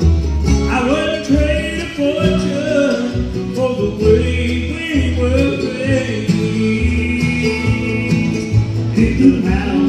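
Bluegrass band playing live on banjo, upright bass, acoustic guitar and mandolin: an instrumental break, with a picked melody over a steady plucked bass line.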